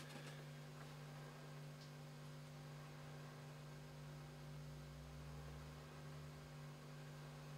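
Near silence with a faint, steady electrical mains hum.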